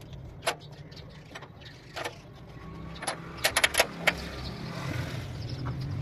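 Sharp metallic clicks and clinks from hand work on a tractor's rear axle hub: one about half a second in, another near two seconds, then a quick run of five or six just before four seconds. Under them runs a low hum that grows louder in the second half.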